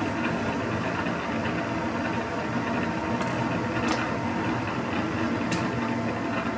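Metal lathe running with a gear blank spinning in the chuck while a 12 mm end mill cuts into its off-centre bore to true the hole up. A few short sharp ticks sound over the steady machine noise, about three, four and five and a half seconds in.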